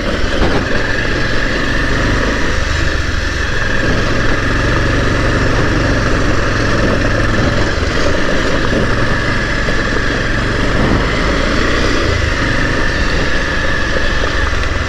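Motorcycle engine running steadily at low speed on a rough dirt track, with a steady high whine over the engine note.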